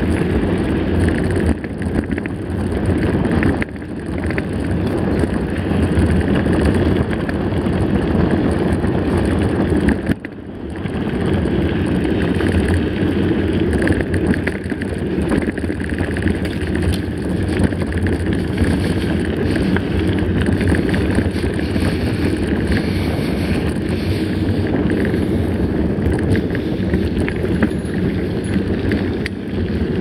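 Mountain bike rolling along a gravel road: a steady rumble of wind on the microphone and tyres on the loose surface, dipping briefly about four and ten seconds in.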